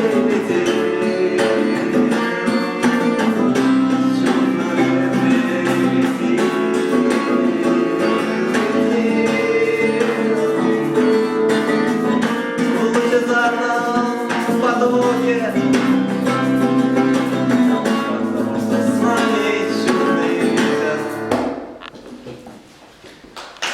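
Acoustic guitar playing the close of a song. The music stops about two seconds before the end, leaving only a faint sound.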